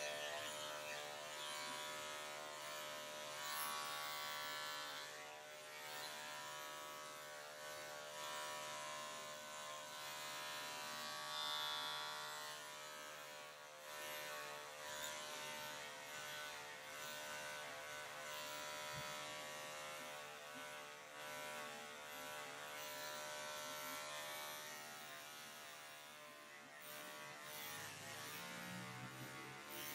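Electric dog grooming clippers running steadily, shaving down a dog's pelt-matted coat; a steady motor tone with several even overtones.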